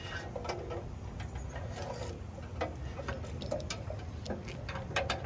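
Light, irregular clicks and ticks of cable and gloved hands against a metal meter can as the cable is fed down through it, over a low steady outdoor background.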